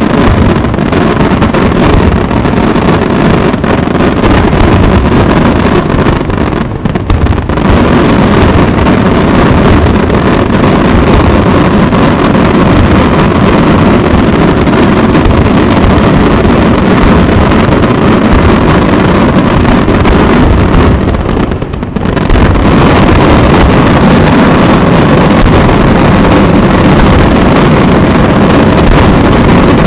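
Dense fireworks barrage of aerial shells, the explosions so rapid and heavy that they merge into one continuous loud rumble, easing briefly about seven and twenty-two seconds in.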